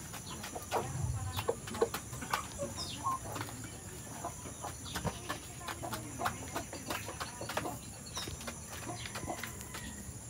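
A small flock of hens, mostly Rhode Island Reds, clucking softly now and then while foraging, with many small ticks and scratches of pecking in the litter.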